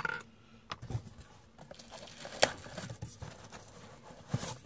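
Cardboard packaging being handled and opened: scattered rustling and light knocks, the sharpest a bit past halfway through.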